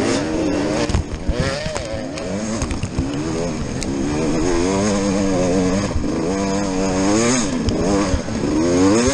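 Enduro dirt bike engine heard close up from the bike itself, its pitch rising and falling over and over as the throttle is worked on the rough trail, with a few sharp knocks from the bike over the bumps.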